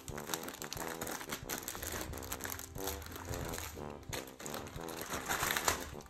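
Plastic wrapping and mesh netting crinkling and crunching as a husky chews and tears at a wrapped Christmas cracker toy, loudest a little over five seconds in, over background music.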